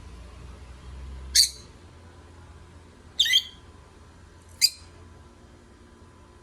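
Lovebirds calling: three short, high-pitched chirps spaced a second or two apart, the middle one a quick double.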